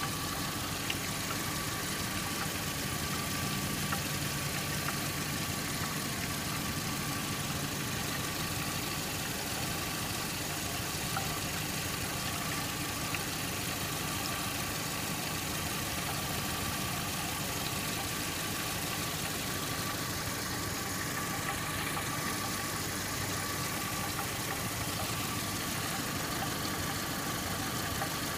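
Saturn S-series car engine idling steadily, with a faint metallic clanking that the owner likens to a muffled cow bell and thinks may come from the catalytic converter.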